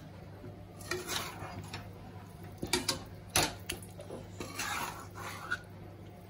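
Metal spatula scraping and knocking against a dark metal wok (kadai) while stirring chicken pieces through thick masala, in irregular strokes with a few sharp clacks, the loudest about halfway through.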